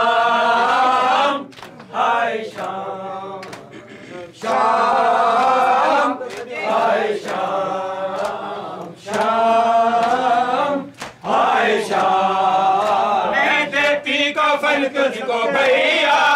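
Group of men chanting a noha, a mourning lament, in unison in long sung phrases with short breaks. Near the end, quick rhythmic slaps of hands striking chests in matam join the chanting.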